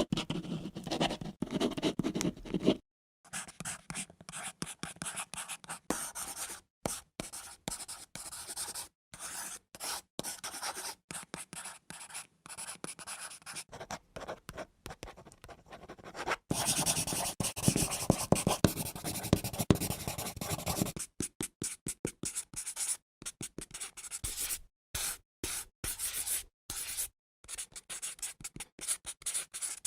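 Pencil writing on paper: irregular scratchy strokes that stop and start, with a louder, heavier passage about halfway through.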